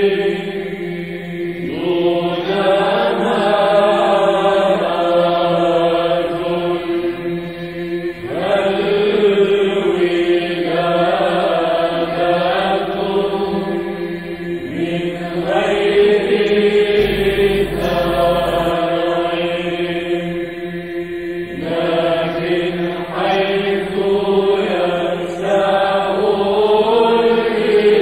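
Byzantine Orthodox chant in Arabic: voices sing a melismatic melody in phrases of about six seconds over a steady held drone (ison).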